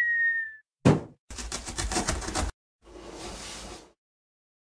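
Cartoon sound effects for an animated intro. A short tone that falls slightly opens it, followed by a single sharp thump just before a second in, a rapid rattling clatter lasting about a second, and then a soft whoosh.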